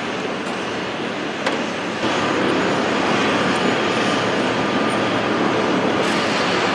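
Steady engine drone, a little louder from about two seconds in, with a sharp click about a second and a half in.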